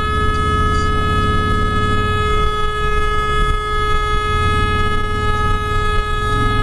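A vehicle horn held down in one long, unbroken, steady blast, over the low rumble of a motorcycle engine running.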